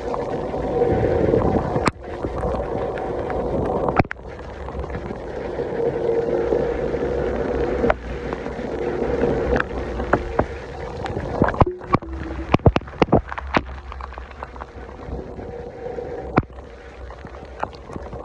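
Heavy rain falling in a steady rush, with water spilling off a roof edge. About two-thirds of the way through comes a quick run of sharp taps and splashes.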